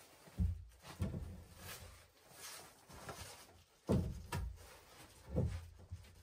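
Dull wooden thumps and knocks as a chainsaw-milled plank is handled and set on log floor joists, mixed with footsteps; several separate knocks, spread through the stretch.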